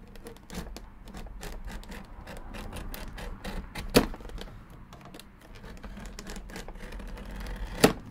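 X-Acto knife blade scoring along the groove of a hard plastic clamshell package: a steady run of small scratchy clicks, with two sharper, louder clicks about four seconds in and near the end.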